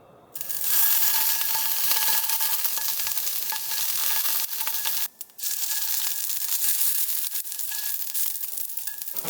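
Steak sizzling as it sears in a hot frying pan: a steady hiss that starts about half a second in and drops out briefly a little past halfway.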